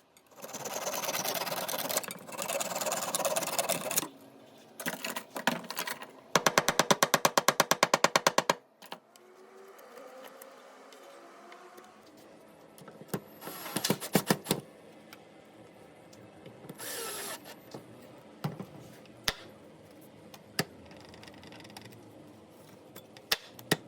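Hand-tool work on wood to re-fix a loose hinge screw: a few seconds of rough scraping noise, then a rapid even clicking lasting about two seconds, then scattered knocks and clicks.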